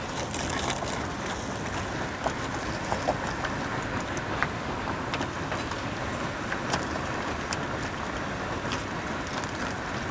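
A pot of suki soup boiling, a steady bubbling noise with scattered small pops.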